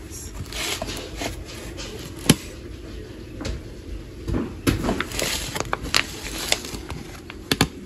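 Kitchen handling noises: scattered light rustles and clicks, with one sharp click about two seconds in and a quick double click near the end.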